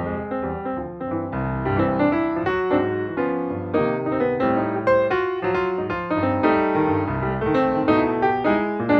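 Piano music with many quick notes and chords, played at an even, lively pace.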